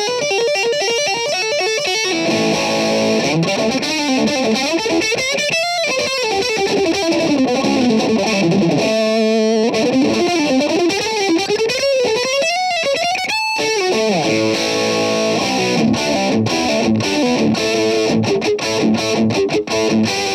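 Electric guitar through a very high-gain distortion pedal, playing fast lead lines with pitch sweeping up and down. There is a held note about nine seconds in, and tighter rhythmic chords in the last few seconds.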